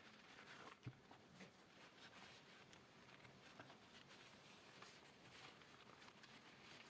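Faint cloth wiping and rubbing over a hard surface, with soft scratchy strokes and a light knock about a second in.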